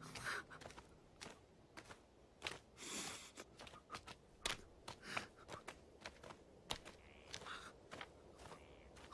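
Faint footsteps and scuffs on stony ground, with a few soft breaths or sobs from a man weeping.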